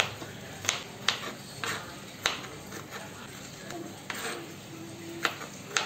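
Kitchen knife chopping red bell pepper on a plastic cutting board: sharp, irregularly spaced taps of the blade hitting the board, about seven in all.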